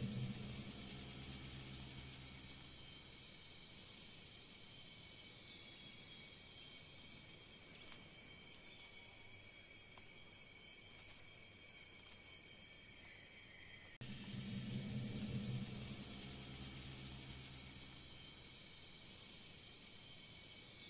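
Steady chorus of chirping crickets, several insects holding steady high notes at once. At the start and again about two-thirds through, a low hum with a fast, buzzing trill swells over the chorus for a few seconds.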